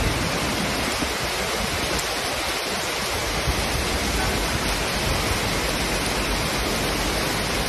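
Heavy rain pouring steadily onto a city street: a dense, even hiss with no letup.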